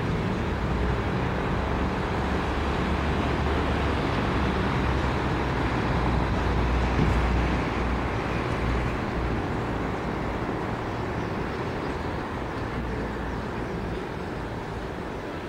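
Road traffic rumbling, building to a peak about halfway through and then slowly fading, as of a vehicle going by unseen.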